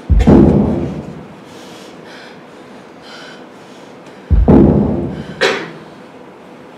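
Two deep, heavy thuds about four seconds apart, each dying away over a second or so, the second followed by a sharp crack; a faint hiss lies between them.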